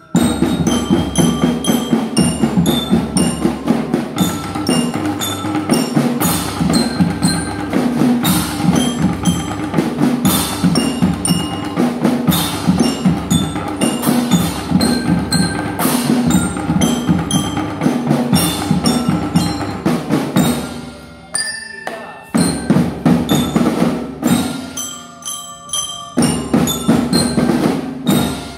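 School marching drum band playing a tune: bell lyres (marching glockenspiels) carry the melody over a steady beat of drums. The sound dips briefly twice in the last third.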